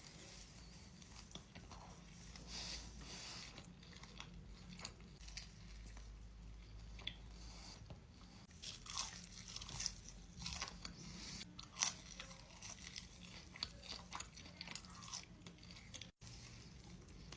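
Close-miked eating: a person biting into crisp food and chewing with repeated sharp crunches, most frequent in the second half. The sound drops out for an instant near the end.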